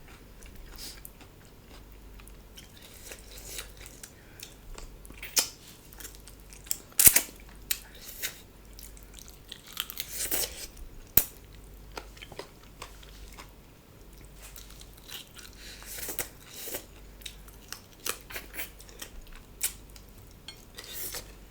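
Close-miked chewing and biting of chicken curry on the bone, with scattered crunching and wet clicks and a few louder snaps.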